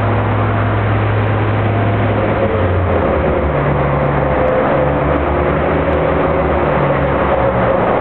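Heavy engine running steadily with a low hum over dense mechanical noise; the engine note shifts about two and a half seconds in, and a higher tone comes and goes after that.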